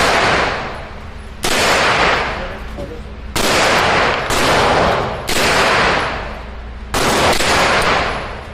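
Aero Precision EPC 9 9mm pistol-caliber carbine firing single shots at a slow, uneven pace, five within about six seconds. Each shot trails off in a long echo.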